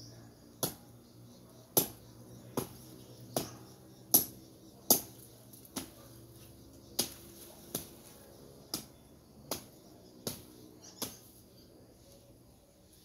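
Machete chopping at brush and stems on the ground: about thirteen sharp chops, roughly one a second, stopping about two seconds before the end.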